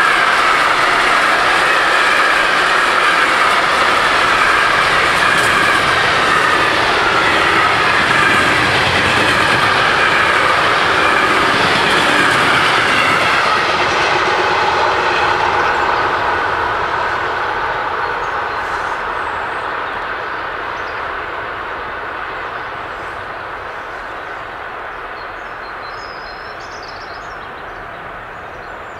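Freight train of container wagons rolling past, wheels running over the rail joints with a steady rumble. A little over halfway through, the last wagon clears and the sound fades away down the line.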